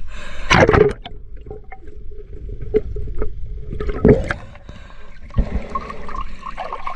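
Water sloshing and gurgling right at the microphone as a spearfisher moves at the surface, with a loud rush about half a second in and a shorter one about four seconds in.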